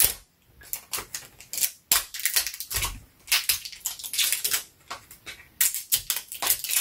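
Crinkling and crackling of a small plastic wrapper being handled and peeled open by hand, in quick irregular clicks.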